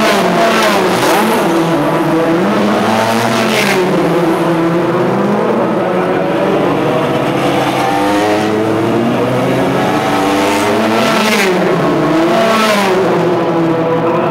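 Several single-seater race car engines running at high revs as the cars accelerate along the straight and pass by. Their pitch climbs and drops again and again, with overlapping engine notes throughout.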